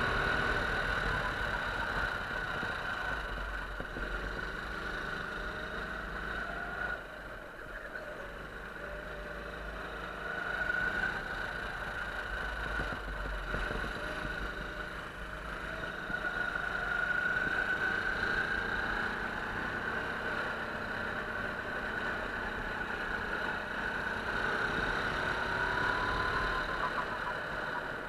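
Go-kart engine running under the driver, its pitch rising and falling in long sweeps as the throttle is opened and closed around the track.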